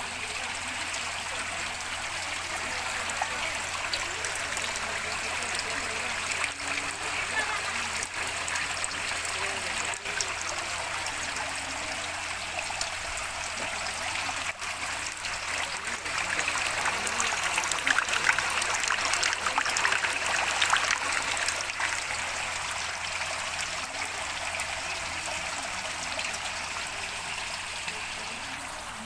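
Water trickling and splashing steadily as it falls from the outlets of stacked plastic tubs into the tubs below, in a flow-through silk worm (tubifex) culture rack. It grows louder for a few seconds past the middle.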